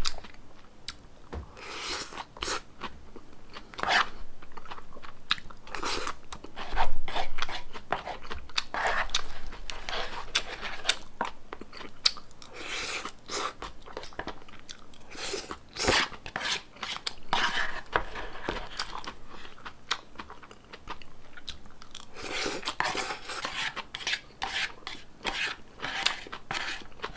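Close-miked crunching and chewing of a salmon poke bowl's fresh lettuce and vegetables, bite after bite in an uneven rhythm.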